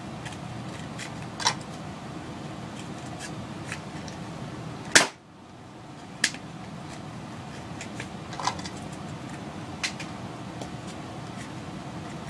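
Modified Nerf blaster with a home-made CPVC twist breech fired once about five seconds in, a sharp pop of the dart launching. Around it come several lighter clicks and clacks of the blaster being primed and the breech opened, loaded with a dart and closed again.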